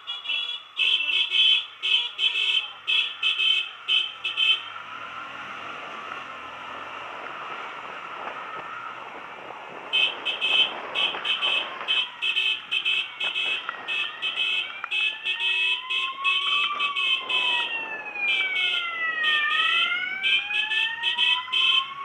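Electronic siren sounding: rapid high-pitched beeping pulses, which stop for a few seconds and then start again, joined about halfway through by a slow wail that rises and falls.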